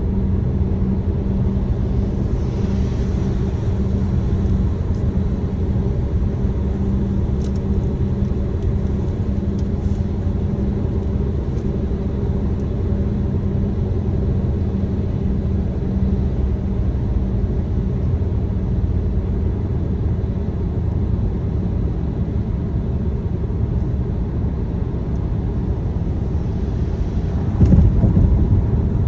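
Steady low rumble of a car driving, heard from inside the cabin: engine and tyre drone with a few faint high ticks, swelling louder near the end.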